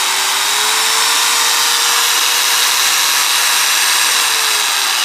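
Bosch 220 V variable-speed angle grinder running with no load, a steady motor whine with fan hiss. Its pitch rises a little about a second in as the speed setting is turned up, holds, then drops slightly near the end as the setting changes again.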